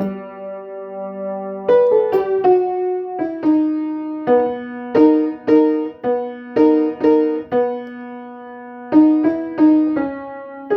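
Piano melody played one note at a time, unevenly timed, with each note left ringing into the next: a learner practising a new piece.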